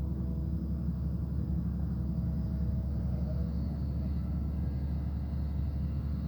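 Excavator's diesel engine running steadily, a constant low drone with no change in speed.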